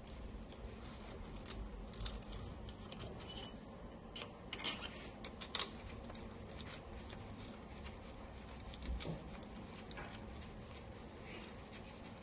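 Faint handling noise of gloved hands on an engine block: scattered small clicks and rustles, a few sharper clicks about halfway through, over a low room hum.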